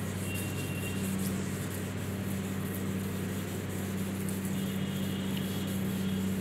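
A steady low hum with a faint hiss.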